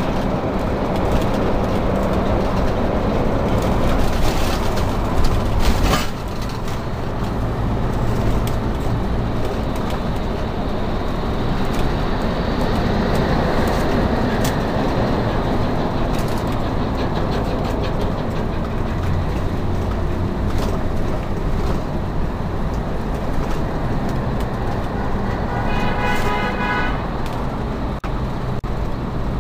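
Road and engine noise inside a motorhome's cabin at freeway speed: a steady rush and rumble with a low engine hum. There are a few rattles around five seconds in and a brief pitched tone near the end.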